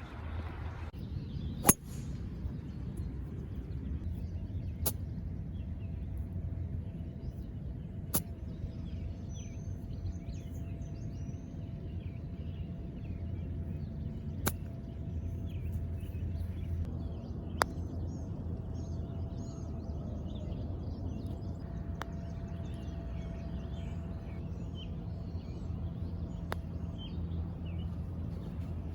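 Golf balls being struck: six sharp clicks spaced several seconds apart, the first much the loudest, over a steady outdoor rumble with birds chirping faintly.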